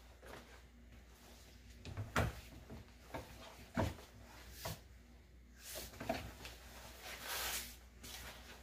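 Rubber door-opening weather strip of a Ford Explorer being pulled off its flange by hand: a few sharp knocks, then a rustling scrape as the seal comes free.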